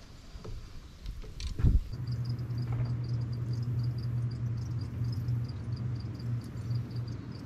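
A sharp thump, the loudest sound, about a second and a half in, then a boat motor starts a steady low hum. Insects chirp high above it in a quick, even pulse of about four a second.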